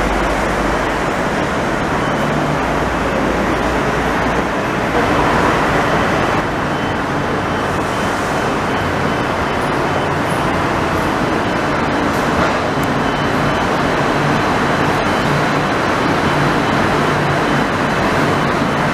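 Steady city traffic noise, with a Taipei Metro train running along the elevated viaduct and passing underneath.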